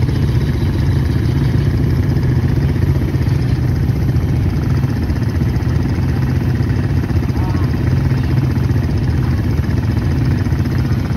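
ATV (quad bike) engine running steadily at a low, even trail-riding speed, heard from on board the quad, with no revving or stops.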